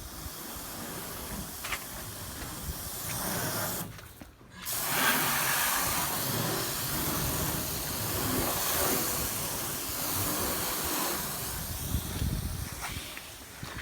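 Water spraying from a hose onto a car being washed: a steady hiss that breaks off briefly about four seconds in, then comes back louder.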